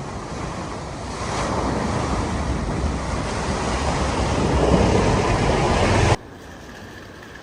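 Rushing, splashing water as a vehicle ploughs through deep floodwater, building louder over several seconds. It cuts off suddenly about six seconds in, leaving a quieter steady hum.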